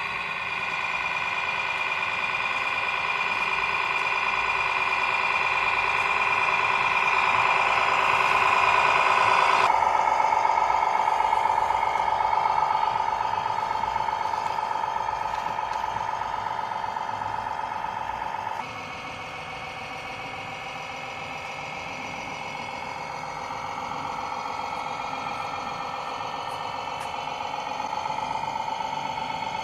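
Radio-controlled model trucks running: a steady mechanical whine with several pitched tones, which changes abruptly twice.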